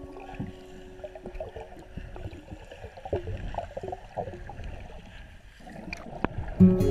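Underwater sound through a GoPro: gurgling, bubbling water with scattered small clicks. A held music note fades out in the first two seconds, and music comes back loudly near the end.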